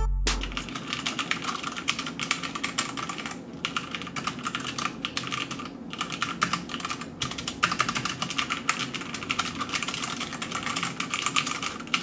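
Fast typing on the Aorus K7 mechanical keyboard with Cherry MX Red linear switches: a dense patter of key strokes broken by a few brief pauses. This is a sound test of switches that are among the quietest on the market.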